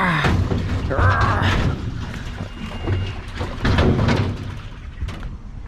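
A large, heavy scrap item being walked and shoved into place for loading, with irregular scraping and knocking.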